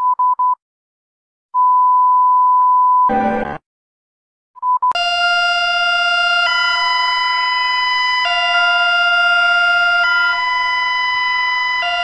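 Three short beeps and a longer steady beep at one pitch, then a brief burst of noise. About five seconds in, an electronic warning siren starts: a loud, steady chord of tones that shifts pitch in steps every second or two.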